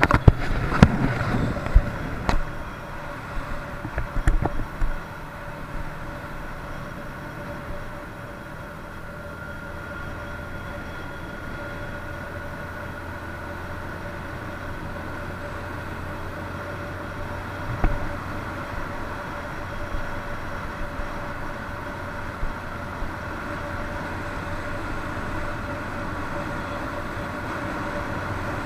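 Moped engine running steadily under way, with wind and road noise. There are a few knocks in the first few seconds.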